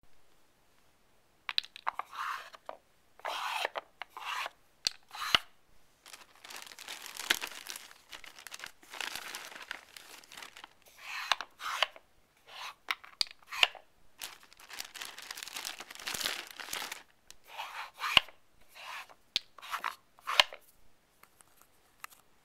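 Blocks of a Nina Ottosson Dog Brick plastic puzzle toy scraping along their tracks in irregular bursts, with sharp clicks and knocks, as a dog pushes them aside to get at hidden treats.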